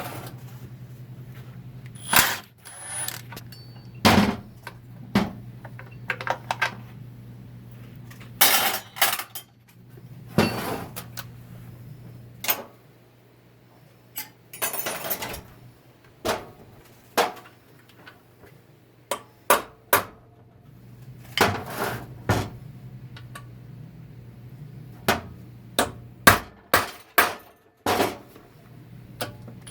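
Metal transmission parts and hand tools knocking and clinking during an automatic transmission teardown, in irregular sharp strikes, a few close together, over a steady low hum.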